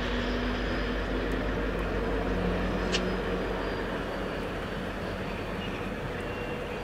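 Pacific National diesel locomotives, a 48 class and an 82 class among them, running light engine past at a distance: a steady engine rumble that eases a little in the second half, with one short high click about three seconds in.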